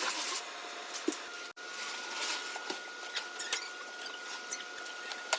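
Scattered light clicks and knocks of kitchen items being handled during cleaning, over a steady faint hiss, with a faint steady high tone from about a second and a half in.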